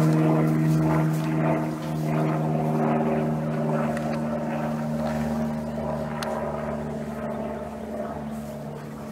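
A steady engine drone with a constant pitch, slowly fading away.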